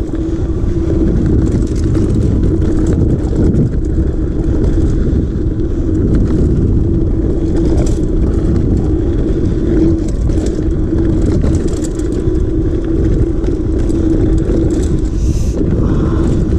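Mountain bike descending a rough trail: wind buffeting the rider-worn camera's microphone, with the bike rattling over the bumps and a steady buzzing tone under it.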